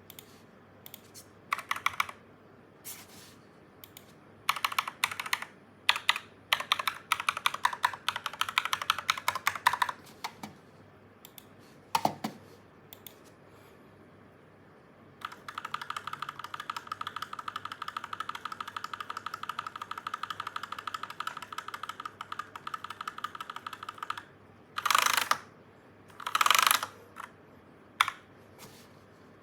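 Akko 3108 mechanical keyboard being typed on: single keystrokes and quick runs of keys. Midway comes a long, even run of very fast keystrokes, and near the end two louder, longer strokes.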